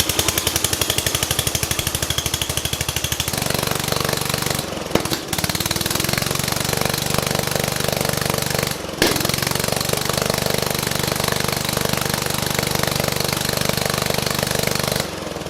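The small gasoline engine of an 11 hp riding lawn mower running. It pulses fast and evenly at first, then settles to a steadier running note, with a few abrupt breaks where the sound cuts out.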